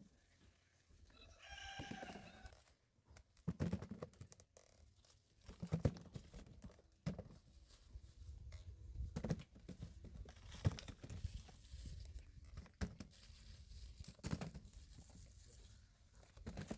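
Canistel (lekima) fruits being gathered from dry leaf litter and dropped into a woven bamboo basket: scattered knocks of fruit landing and rustling of dry leaves, the loudest knock a little past halfway. About two seconds in there is a brief pitched call.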